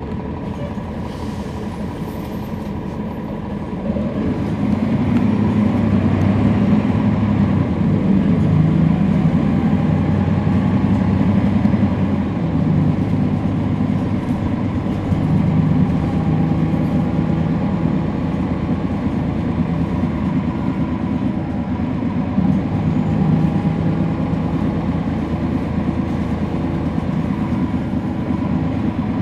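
Interior of a NABI 40-SFW transit bus heard from the rear seats: the Cummins ISL9 diesel running under way, with the ZF Ecolife six-speed automatic transmission's whine making most of the noise. The sound grows louder about four seconds in, and its low pitches step around several times after that.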